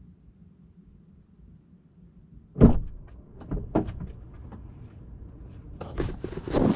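A faint low hum, then a sudden loud knock about two and a half seconds in, followed by scattered clicks and knocks, with a denser clatter near the end.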